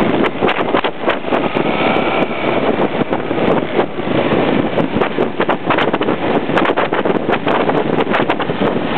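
Heavy wind buffeting and crackling on the microphone of a camera riding on a moving motorcycle, over the general noise of the ride.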